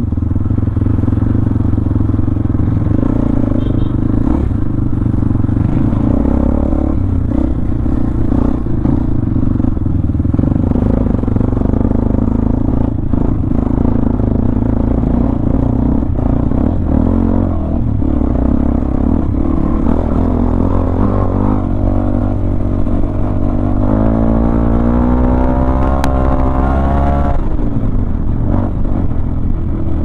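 Honda CB500X's parallel-twin engine running steadily while riding a rough dirt track, with knocks and rattles from the bumps. About 24 s in, the engine note climbs over a few seconds as it accelerates, then drops back.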